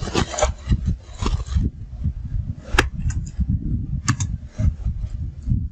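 A few sharp computer-keyboard key clicks as code is typed, over continual irregular low thumping and rubbing close to the microphone.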